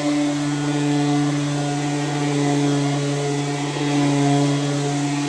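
Electric sheet sander running at a steady pitch, sanding wooden floorboards: a loud, even motor hum with a hiss of abrasion.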